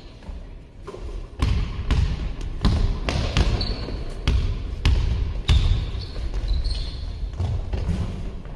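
A basketball being dribbled on a sports-hall floor: a run of sharp bounces, about two to three a second, starting about a second and a half in. Sneaker soles squeak briefly on the floor a few times.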